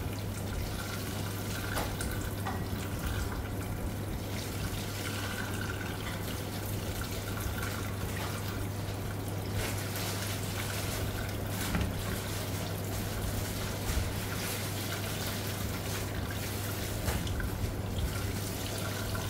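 Kitchen tap running in a thin stream onto diced pomelo pith in a plastic colander, splashing as hands squeeze and rinse the pith under it, with a steady low hum beneath.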